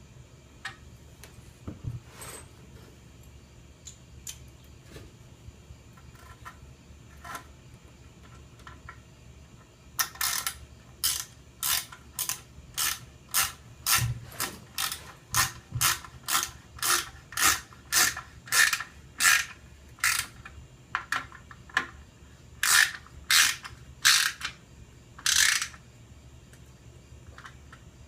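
A ratcheting hand tool clicking in a run of short strokes, about three a second for some ten seconds, then a few more strokes. It is most likely a screw being driven to fix the wall piece of a French cleat. A few light knocks come before the strokes.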